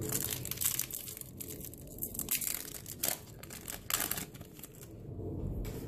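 Foil Yu-Gi-Oh booster pack wrapper crinkling and tearing as it is twisted open by hand, a run of short crackles.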